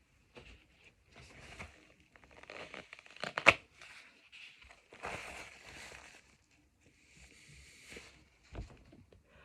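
Crinkling and rustling in several short bursts, with one sharp, much louder crack about three and a half seconds in.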